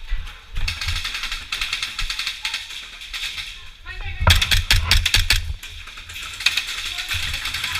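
Airsoft guns firing rapid bursts of fast clicking shots, in three stretches, the loudest about halfway through.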